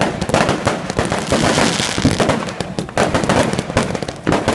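Fireworks going off in a dense, rapid run of bangs and crackles with no pause.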